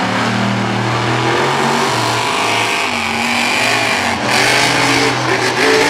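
Monster truck engines running loud and revving, their pitch holding and then shifting up and down. A rushing wash of noise swells over them about four seconds in.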